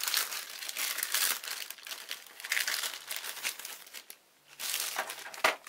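Clear plastic kit bag crinkling as it is handled open and the instruction sheet and plastic sprue are slid out. There is a short lull about four seconds in, then a single sharp tap near the end.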